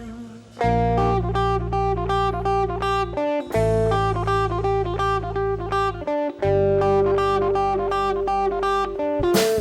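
Band music with no singing: a guitar picks a quick repeating figure over long held bass notes, which change about every three seconds. The drum kit comes in near the end.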